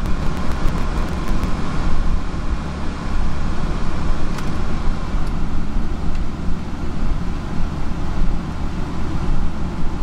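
Portable generator engine running, a steady low mechanical drone, while it charges a power station that is also powering an air conditioner.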